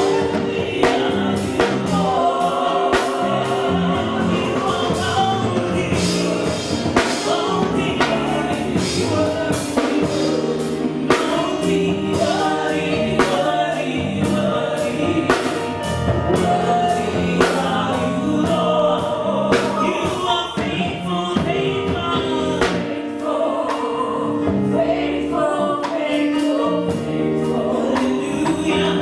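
Gospel worship music: voices singing together over a band, with regular drum hits throughout.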